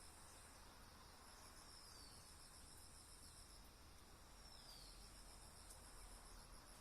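Faint, steady, high-pitched pulsing trill of insects. Over it, a bird gives a short falling whistled note twice, about three seconds apart.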